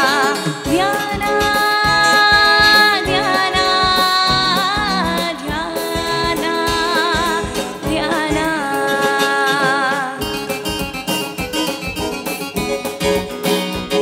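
Female singer performing a Kannada bhavageete live, holding long ornamented notes with vibrato over instrumental accompaniment. About ten seconds in her voice stops and the accompaniment carries on alone.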